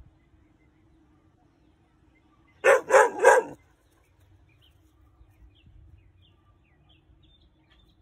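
A Weimaraner puppy gives three quick barks in a row about three seconds in. These are alert barks at an unfamiliar object it takes for an intruder.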